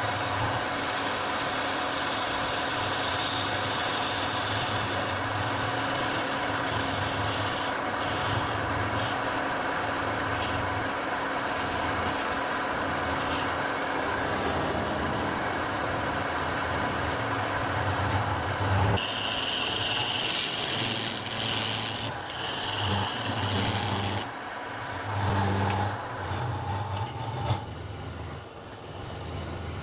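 Wood lathe running with a steady motor hum while a turning tool scrapes and cuts a long workpiece as it spins. The cutting grows louder and sharper about two-thirds of the way in, then comes and goes in uneven spells near the end.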